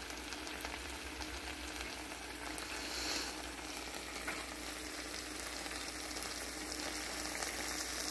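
Rice, beef and vegetables frying in a stainless steel skillet: a steady sizzle with faint crackles.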